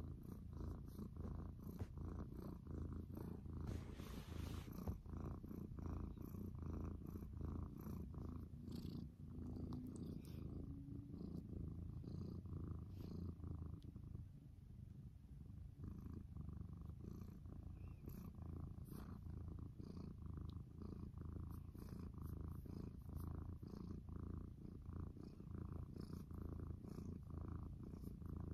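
Domestic cat purring steadily and close up, a low continuous rumble with a fast flutter, while it is stroked under the chin; the purr softens briefly about halfway through. A brief soft rustle about four seconds in.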